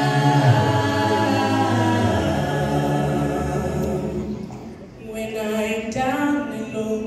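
Small mixed group of male and female voices singing a cappella, holding a long chord at the end of a phrase that fades out about four and a half seconds in. The voices come back in softly about a second later with the next phrase.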